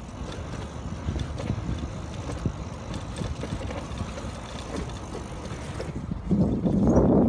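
A bicycle rolling along a paved promenade: steady tyre and wind noise picked up by a camera on the moving bike. A louder low rumble swells about six seconds in.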